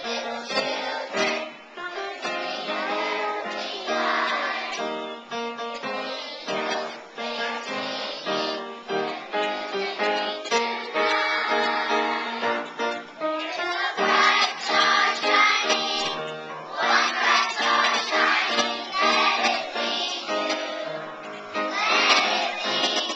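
A choir of young schoolchildren singing a Christmas song to upright piano accompaniment, phrase after phrase with short breaks between.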